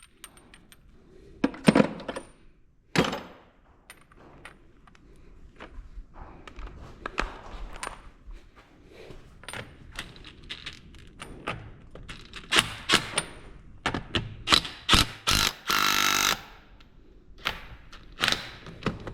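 Metal clinks and knocks of sockets and lug nuts being handled at a car wheel, with a one-second burst of a pneumatic impact wrench hammering late on.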